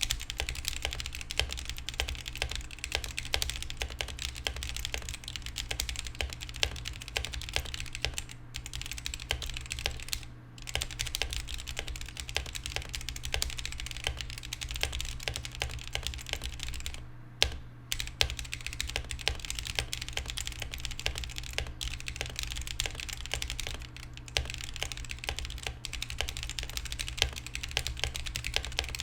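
Rapid, steady typing on a Womier K61 60% hot-swap mechanical keyboard, mostly on unlubed Akko CS Matcha Green linear switches under stock ABS keycaps. The clicks come quickly, with a few short pauses.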